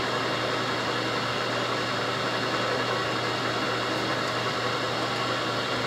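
Burke horizontal milling machine running under power: its electric motor and V-belts drive the repaired Lima four-speed gearbox in fourth gear, turning the spindle with a steady hum and whir.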